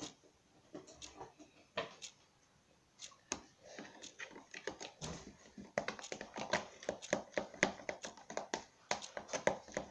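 Sticky slime mix of shaving foam and shower gel being stirred and scraped in a plastic tub: irregular soft clicks, sparse at first and coming thick and fast from about halfway.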